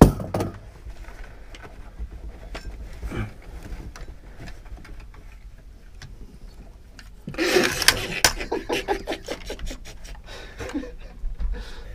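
A rifle shot cracks inside the small plywood blind right at the start, then scattered clicks and knocks of the rifles being handled. About seven seconds in comes a longer spell of metallic clattering and rattling as a rifle's action and magazine are worked, with the shooter's ten-round magazine empty or his gun jammed.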